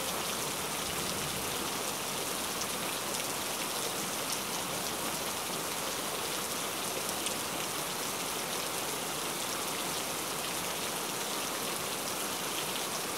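An even, steady hiss with no distinct knocks or clinks.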